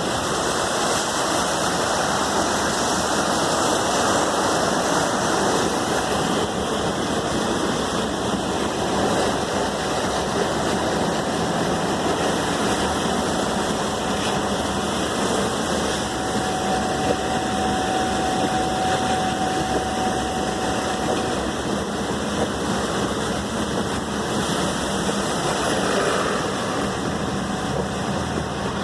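Floodwater rushing in a steady, loud roar of water noise, with a vehicle engine running underneath it.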